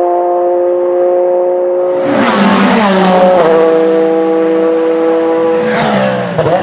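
Porsche 911 RSR's mid-mounted 4-litre flat-six race engine at high revs on track. It passes close about two seconds in, with the pitch dropping as it goes by, and a second pass with a falling pitch comes near the end.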